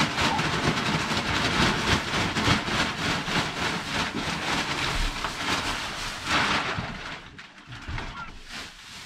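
Large plastic bag rustling as it is shaken and emptied, loose wood shavings pouring out and scattering onto a wooden floor. The rustling dies down about seven seconds in.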